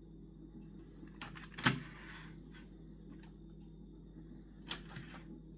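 Handling noise of a 3D-printed plastic model tank: a few light clicks and knocks of plastic, the loudest about a second and a half in and a couple more near the end, over a steady low hum.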